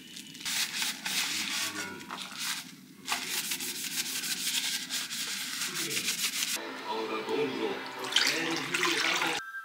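Paper towel scrubbing the inside of a stainless steel container, oil-wiped to lift polishing residue before first use: a continuous scraping rub. About two-thirds of the way through it gives way to milk pouring from a carton into a glass measuring jug.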